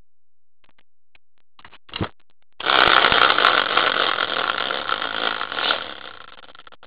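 Small hand-spun prize wheel: a knock as it is pushed off, then a loud, rapid rattling buzz as it spins, fading away over about four seconds as it comes to rest.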